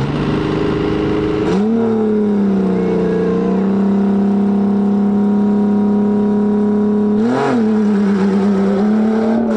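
A tuff truck's engine revved high and held at steady high revs under power, climbing about a second and a half in and giving one quick extra blip near the end.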